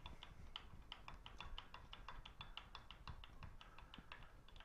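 11/16-inch end mill on a milling machine taking a very light cut, giving a faint, quick run of metallic ticks with a slight ring.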